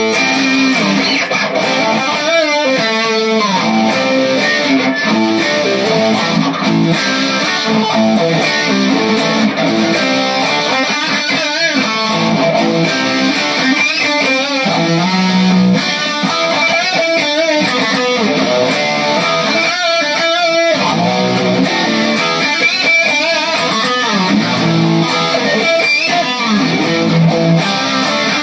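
Electric guitar on its neck-position Tim Shaw PAF humbucker, played through a small Peavey Vypyr solid-state amp with light overdrive. Strummed chords and single-note lines, with notes bent and shaken in vibrato.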